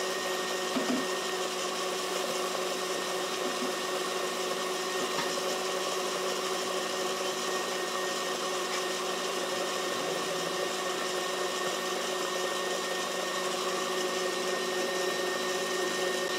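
KitchenAid stand mixer running at a steady speed, with a constant motor whine, its flat beater creaming butter, sugar, shortening and eggs into a thick pound cake batter in a metal bowl.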